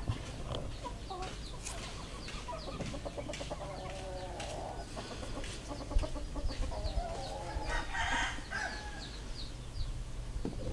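Chickens clucking and a rooster crowing, with small birds chirping throughout. A single sharp knock comes about six seconds in.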